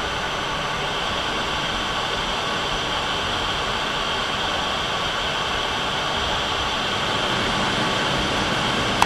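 Steady, even rushing noise of a MiG-29 jet fighter in high-altitude flight, its engines and airflow blending into a constant hiss.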